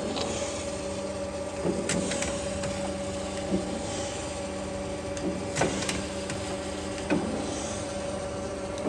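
Freeport SGS-1632AHD surface grinder running its automatic depth-adjustment (downfeed) cycle: a steady machine hum with one clear tone, broken by a short knock every second or two.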